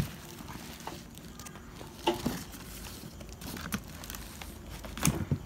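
Handling noise: scattered knocks, taps and rustles as a voltage stabiliser's metal casing is moved about on cardboard and plastic wrapping, with a cluster of sharper knocks near the end.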